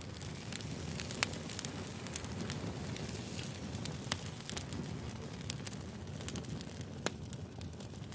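Fire crackling: a steady low rush with sharp pops scattered through it, three of them louder than the rest.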